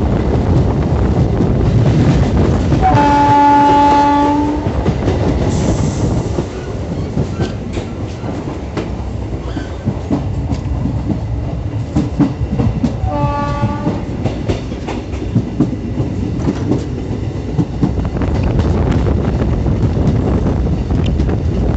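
A passenger train running on the rails, heard from the open doorway of a moving coach: a steady rolling rumble with rail-joint clicks. A locomotive horn sounds twice, a blast of about a second and a half about three seconds in and a shorter, fainter one around thirteen seconds in.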